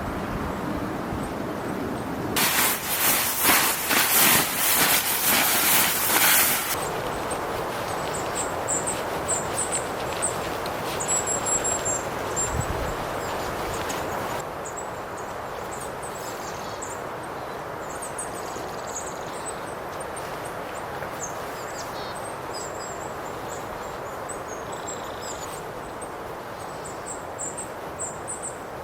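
Wood fire burning with a steady hiss and crackle, and a loud burst of dense crackling for about four seconds near the start. Thin, high bird chirps come in scattered through the rest.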